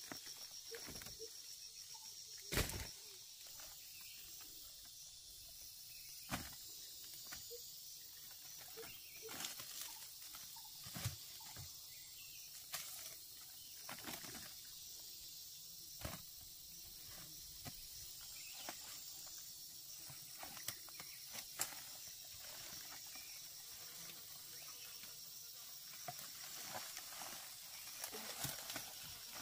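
Small hard round forest fruits knocking and clattering as they are picked up by the handful and dropped into a woven basket, with light rustling of dry leaves underfoot. The knocks come in scattered clusters, the loudest about two and a half seconds in.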